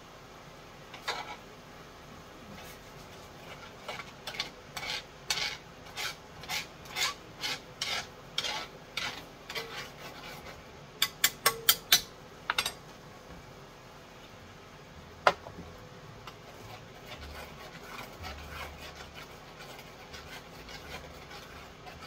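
A utensil scraping and stirring gravy in a metal pan, in rhythmic strokes about twice a second. Partway through come a quick run of five sharp knocks, then a single click, and after that softer stirring.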